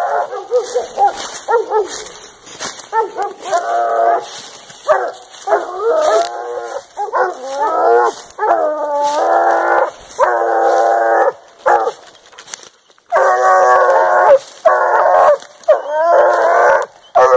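Dogs baying at the base of a tree: long, drawn-out howling barks one after another, with a short break about twelve seconds in. Baying at a tree like this is the sign of an animal treed above them.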